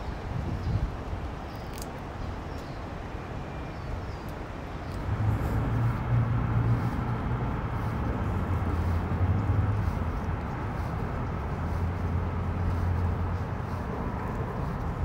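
Outdoor ambience carried by a low, steady hum of road traffic, which grows louder about five seconds in.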